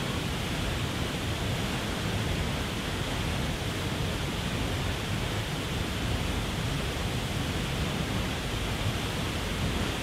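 Waterfall rushing steadily over a rock ledge: a constant, even rush of falling water with a deep low rumble underneath.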